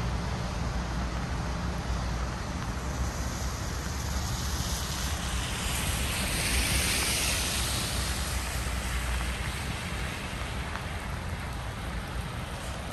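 A vehicle passing on a wet street: the hiss of its tyres on the wet road swells and fades over several seconds in the middle, over a steady low rumble of city traffic.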